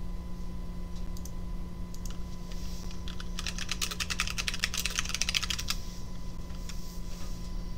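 Typing on a computer keyboard: a quick run of keystrokes lasting about two and a half seconds, starting about three and a half seconds in, with a few single clicks before and after.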